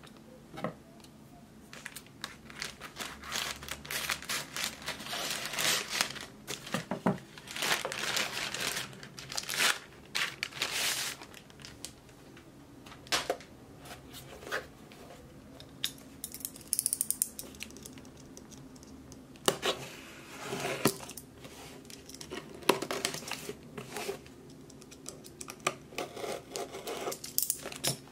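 Black plastic mailer bag crinkling and tearing as it is pulled open by hand, then a cardboard box being handled, in irregular bursts of rustling with a quieter stretch midway.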